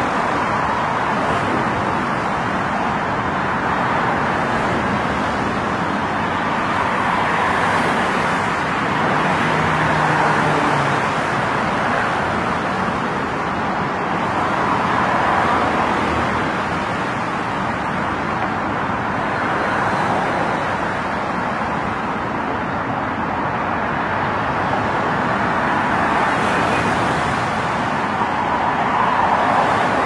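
Steady road and traffic noise: a continuous rushing hiss of tyres and engines that swells and eases every few seconds.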